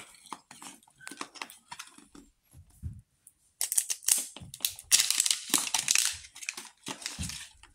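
Thin plastic film crinkling and crackling as it is peeled off a hard plastic toy capsule ball, with small clicks and taps of fingers on the shell. The crinkling gets louder and denser about halfway through.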